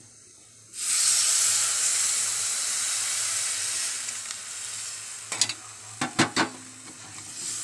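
Water poured into a pan of hot, well-roasted chilli-powder masala in coconut oil, hissing and sizzling loudly as it hits the pan, starting suddenly about a second in and slowly dying down over several seconds. Near the end, a few sharp clinks of the steel stirring spoon against the pan.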